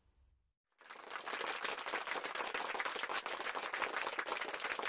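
Recorded crowd applause, many hands clapping in a dense, even stream, starting about a second in.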